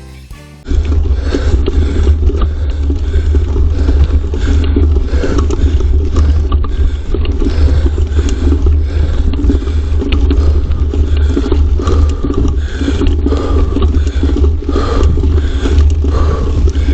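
Music cuts off about half a second in, giving way to loud, continuous rumbling ride noise with wind buffeting the camera's microphone.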